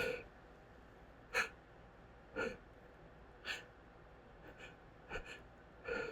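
Short, sharp gasping intakes of breath, about six of them roughly a second apart: the hitching breaths of a stuck sneeze building up without coming out, brought on by dust.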